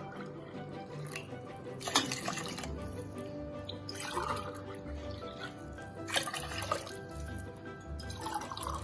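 Water poured from a steel tumbler into a steel cooker of masala, splashing in short pours about every two seconds, over steady background music.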